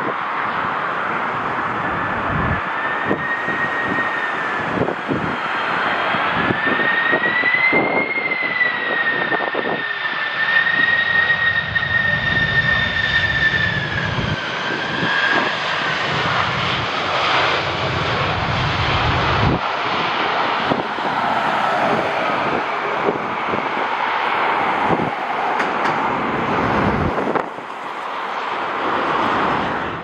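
Jet airliner engines running, a high whine wavering up and down in pitch over a steady roar, the whine fading out about halfway through.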